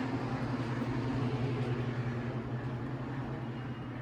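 Steady low hum of a building's HVAC system running.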